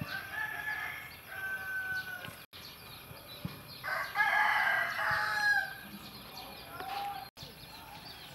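Rooster crowing: shorter calls in the first two seconds, then one long, loud crow about four seconds in. The audio cuts out briefly twice.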